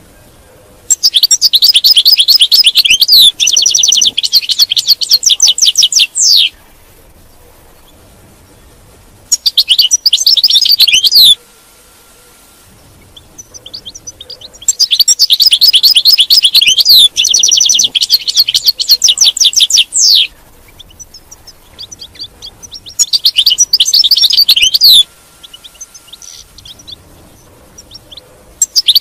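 European goldfinch singing: bouts of fast, high twittering trills a few seconds long, four in all, separated by pauses of a few seconds.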